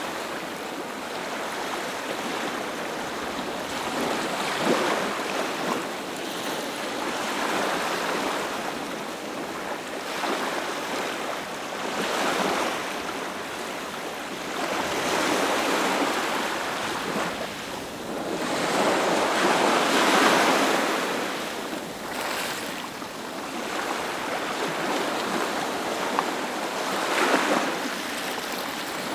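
Ocean surf: waves breaking and washing up one after another, the rushing noise swelling and fading every few seconds, loudest about two-thirds of the way through.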